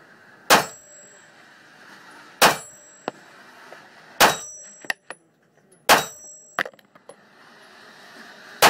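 Five single shots from a 9mm pistol, fired slowly about two seconds apart, each a sharp crack with a short ringing tail, with a few light clicks between shots.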